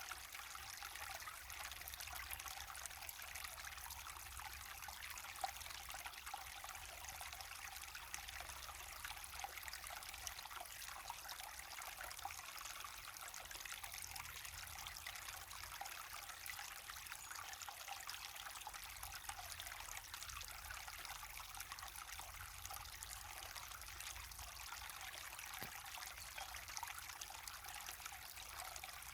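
Small waterfall splashing and trickling steadily into a stream, an even rush of falling water with no change in flow.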